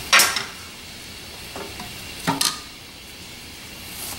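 Short clattering knocks of objects being handled while searching inside something: a cluster just after the start and another a little past two seconds in, over a steady background hiss.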